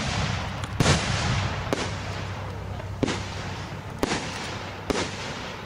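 Aerial firework shells bursting overhead: five sharp bangs about a second apart, each trailing off in a rumble.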